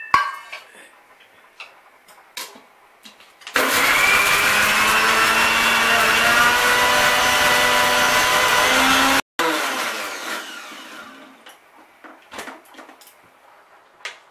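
Electric mixer grinder (mixie) running with its steel jar, grinding fresh coriander and mint leaves, tomato and green chillies into a paste. It starts about three and a half seconds in, runs steadily for about six seconds, then is switched off and winds down. Light clicks and knocks of the jar and lid come before and after.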